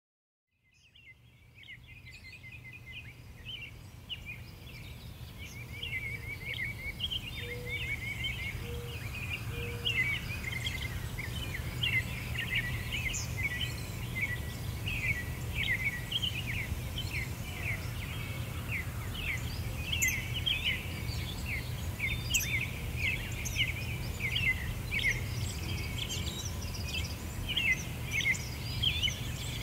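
A dense chorus of small birds chirping, many short high calls overlapping, over a steady low rumble; it fades in from silence over the first few seconds.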